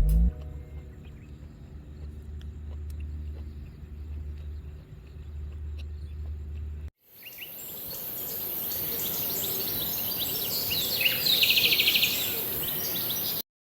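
Outdoor ambience: a steady high drone of insects, with birds chirping that are loudest about eleven to twelve seconds in. Before this, after an abrupt change about seven seconds in, there is a quieter steady low hum with faint ticks.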